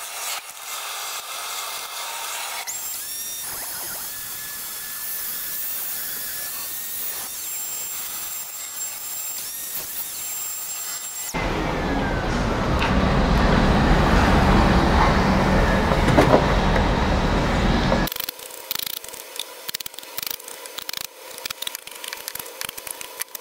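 Electric miter saw running with a steady high whine, then cutting into metal stock from about halfway, much louder. Near the end, quick strokes of a hand file on a metal bar.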